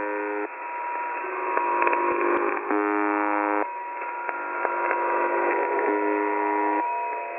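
Shortwave radio reception of UVB-76, 'The Buzzer': a harsh buzz tone about a second long sounds three times, roughly three seconds apart, over crackling static with a steady whistle. The sound is narrow and thin, as radio reception is.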